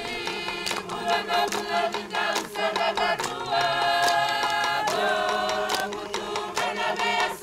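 Background music: held, chant-like sung notes over light percussion clicks.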